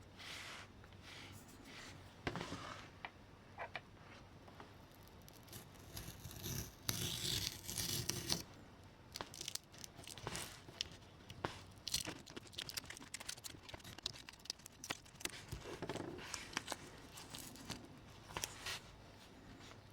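Close hand-work noises on a small model locomotive: scattered clicks and taps, with rustling and scraping and a louder burst of scraping about seven seconds in.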